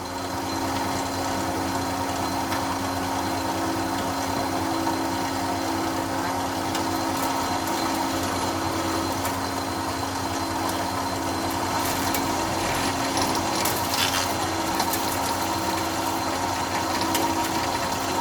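Single-phase electric wood planer running steadily with a constant motor hum as it planes wood, growing louder about half a second in, with a few sharp ticks in the second half.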